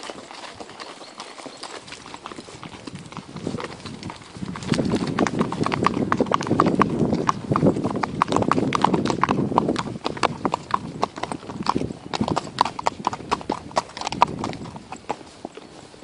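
Icelandic horses' hooves clip-clopping on a paved road: a quick run of sharp hoof strikes that sets in about four seconds in and thins out near the end.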